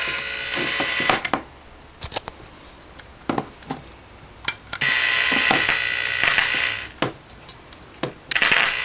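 Clarion RF-1621 AM push-button radio playing static between stations, with a steady high whistle in it. The static drops out twice into much quieter gaps with a few sharp clicks.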